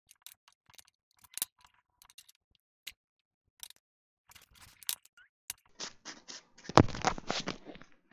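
Small handwork at a hobby bench: scattered light ticks and taps as a pin and tiny pieces of plastic mesh are worked onto a cork base. About six seconds in comes a louder run of scrapes and knocks, loudest around seven seconds.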